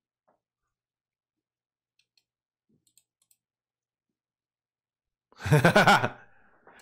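A few faint computer mouse clicks spread over the first few seconds, then a short burst of a man's voice about five and a half seconds in.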